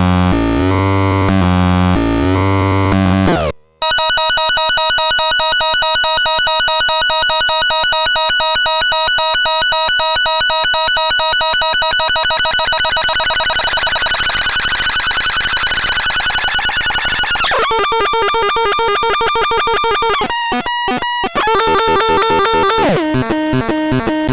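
Torturon C30 electronic noise synthesizer putting out harsh, buzzy tones. It opens with stepping low notes, cuts out briefly, then holds a long steady buzz with a fast flutter, and near the end breaks into shifting, stuttering patterns with short gaps.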